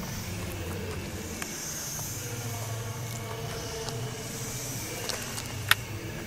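Steady low hum of a motor vehicle, with one sharp click near the end.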